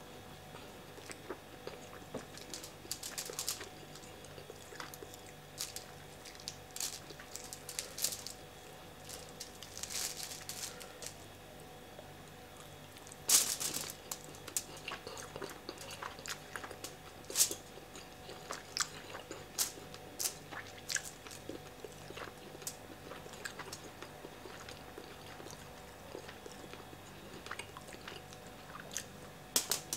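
Close-miked chewing and mouth sounds of a man eating jollof rice and fried fish by hand, with scattered crunches and wet smacks. The loudest of these come about 13 and 17 seconds in.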